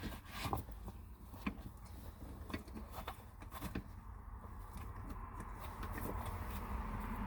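Scattered light clicks and knocks of handling, with a faint steady hum that grows toward the end.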